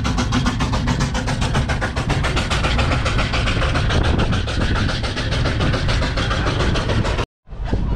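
1956 Renault Junior tractor's MWM AKD 311 Z 1.4-litre two-cylinder diesel engine running steadily, with an even beat of about eight or nine pulses a second. The sound cuts off abruptly near the end.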